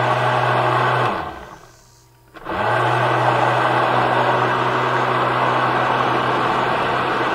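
Blender running, puréeing thick cooked squash soup; about a second in it is switched off and winds down, then about a second later it starts up again and runs steadily.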